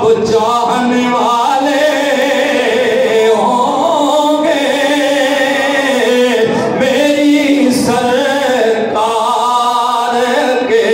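A man's voice singing or chanting in long, wavering held notes, phrase after phrase with short breaks between them.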